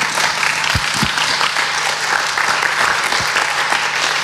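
Audience applauding steadily, with a few short low thumps about a second in and again near three seconds.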